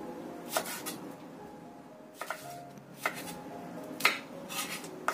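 Kitchen knife slicing a green chili on a bamboo cutting board: a series of short, sharp knocks of the blade through the chili onto the wood, coming at uneven intervals.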